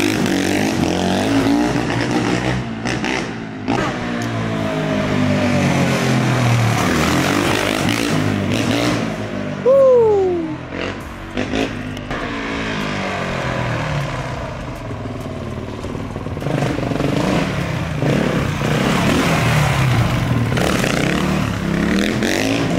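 Honda CRF450 dirt bike's 450 cc four-stroke single being ridden hard, the revs rising and falling over and over as the rider accelerates and backs off. It is loudest about ten seconds in, where the engine note drops sharply in pitch.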